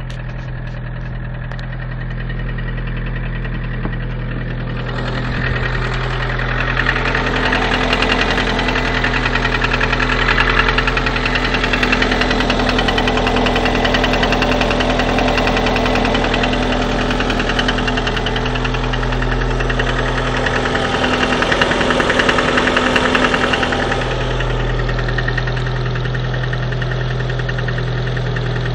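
Lada Priora's 126 engine (VAZ-21126 1.6-litre 16-valve) running cold, with a rapid metallic knock that the owner takes for piston knock. It grows louder about five seconds in and settles back near the end.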